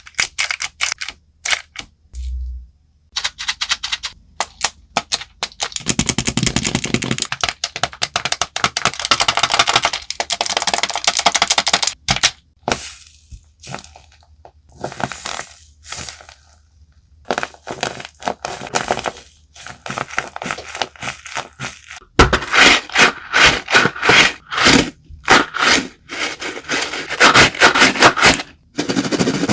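Fidget toys being handled: runs of sharp clicks and crackles, thickening into dense crackling for several seconds around the middle and again over the last several seconds.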